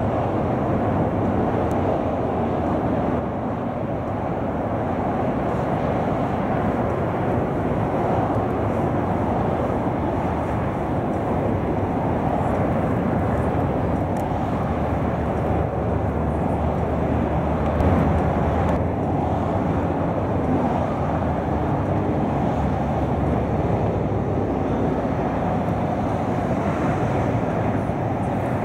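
Twin jet engines of a Southwest Airlines Boeing 737 climbing away after takeoff, a steady rumble.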